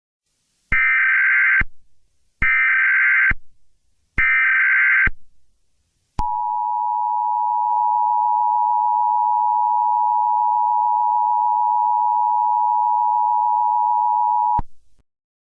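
Emergency Alert System SAME header: three identical screeching digital data bursts, each about a second long. After a short gap comes the EAS two-tone attention signal, a steady harsh dual tone held for about eight seconds before it cuts off, marking the start of an emergency alert.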